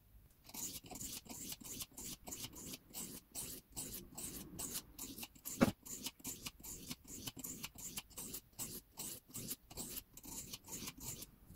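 Knife blade scraping across a wet coarse whetstone in quick repeated strokes, about four a second, with one louder knock about halfway through. The edge is being ground to rebuild a bevel that was damaged by a machine.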